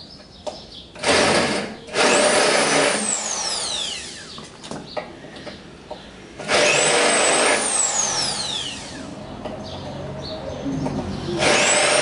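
Handheld electric drill with a 20 mm hole saw cutting into a metal tube, run in three bursts of a few seconds each. After each burst the motor's high whine falls away in pitch as it spins down.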